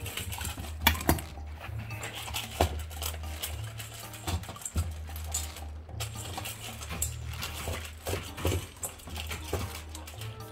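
Dogs eating dry kibble from stainless steel bowls: irregular clicks, crunching and the clink of metal bowls rattling in their wire stands, over background music.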